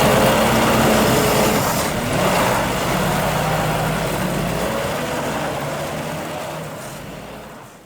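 Tractor engine running steadily with its hum of mechanical noise, fading out gradually over the last few seconds.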